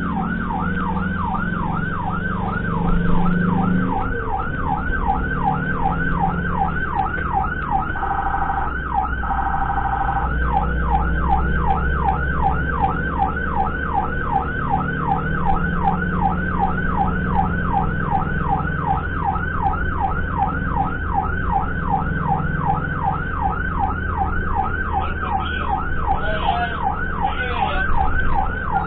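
Ambulance siren on an emergency run, sounding a fast yelp of about three rising sweeps a second. About eight seconds in it switches briefly to a steady tone, then goes back to the yelp. A vehicle engine rumbles underneath.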